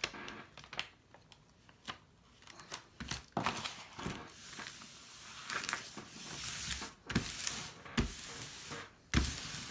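Plastic and paper packaging crinkling and rustling as it is handled, with scattered clicks and a few soft knocks.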